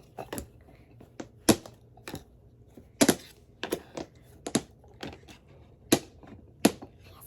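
Sharp, irregular clicks, about two a second, as a small squeeze toy is squeezed and shoots out its little pops.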